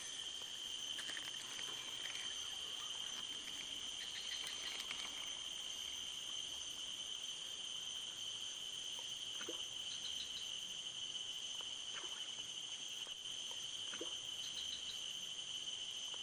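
A steady, unbroken insect chorus: a continuous high-pitched trill that holds one pitch. A few faint clicks come through in the second half.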